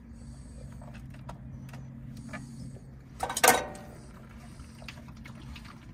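Small clicks and handling noises as parts are taken off a pool booster pump by hand, with one short, louder clatter about three and a half seconds in. A steady low machine hum runs underneath.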